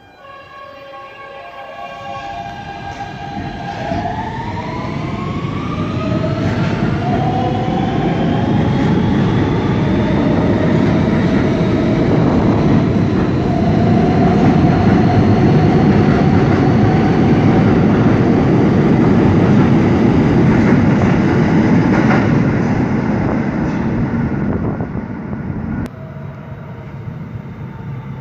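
New York City subway Q train of R160 cars accelerating out of the station. Its motors whine in a set of steady tones that rise in pitch over the first few seconds, giving way to a loud rumble of wheels on rails. The rumble peaks midway, fades and drops off suddenly about two seconds before the end.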